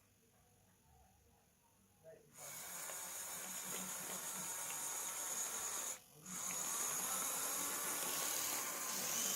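Small electric drive motors and gears of a 3D-printed model CAT excavator running with a steady hissing whir. It starts about two seconds in, stops briefly around six seconds, then runs again.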